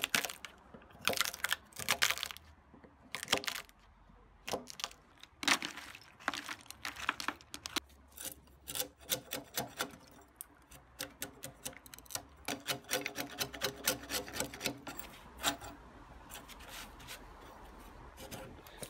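A wood chisel snapping off thin slices of pitch pine left between saw kerfs in a beam, making a run of irregular sharp cracks and snaps of splitting wood. The blade scrapes along the bottom of the notch, with a stretch of squeaky scraping about two-thirds of the way through.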